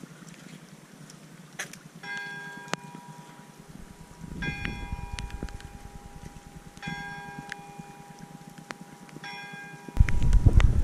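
A large tower bell struck four times, about two and a half seconds apart, each stroke ringing on and fading. Near the end a loud low rumble comes in suddenly.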